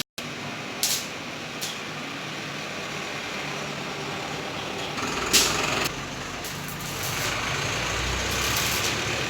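Street background with a motor vehicle engine passing, louder and deeper from about five seconds in and building toward the end, with a couple of light clicks in the first two seconds.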